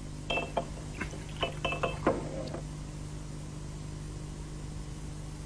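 A quick run of light glass clinks, about eight over two and a half seconds: a bottle and a glass knocking together as a drink is poured.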